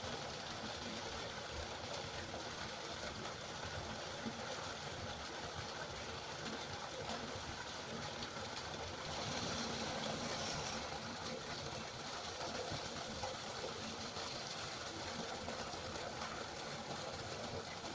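Steady rain falling, an even hiss that swells a little in the higher range about nine to eleven seconds in.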